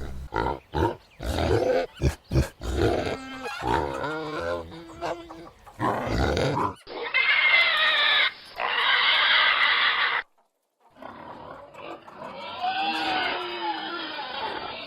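Pigs grunting in a quick run of short grunts, then squealing in long high-pitched stretches, with a brief break of silence a little after the middle.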